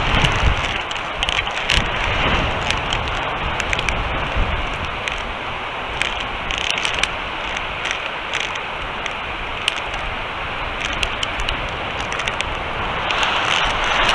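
High wind buffeting the outdoor eagle-nest camera microphone: a steady noise with gusty low rumble and scattered crackles.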